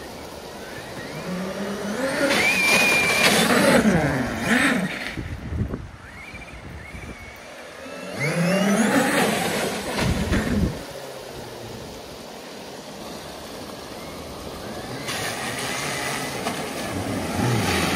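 Cars driving one after another through a flooded ford. Each pass brings an engine note that rises and then falls away, with water spraying from the tyres. There are two passes, about two and eight seconds in, and a third builds near the end, over a steady rush of water.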